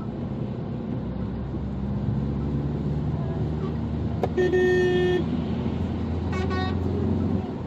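Steady low road and engine noise from a car driving on a motorway. Halfway through, a car horn sounds once for under a second, followed about two seconds later by a shorter, fainter toot.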